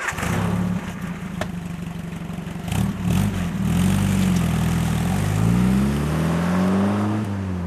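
Car engine running, then revved up and down several times from about three seconds in, the pitch rising highest near the end before dropping back.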